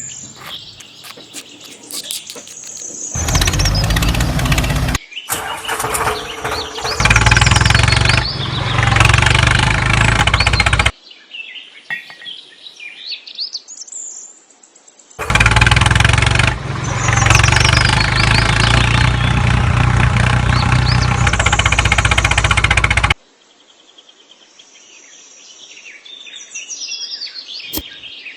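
A small motorised machine running in several loud stretches that start and stop abruptly, with birds chirping in the quieter gaps between them.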